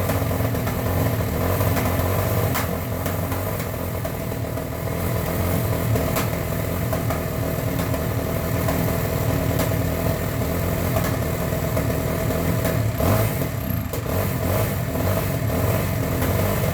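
Two-stroke dirt bike engine running steadily at low revs, with a few sharp knocks in the background.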